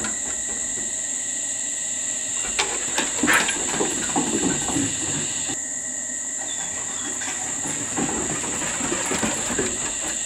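Crickets calling in a steady, high-pitched drone, with a few rustles and knocks around three seconds in.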